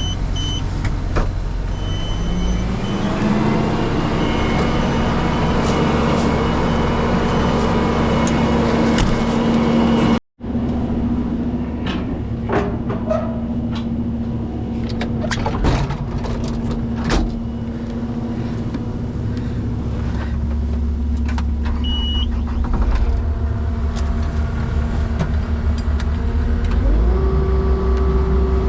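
Truck engine running, its speed rising a few seconds in and then holding steady, with scattered clicks and clanks of equipment; the sound cuts out for an instant about a third of the way through, and the engine note climbs again near the end.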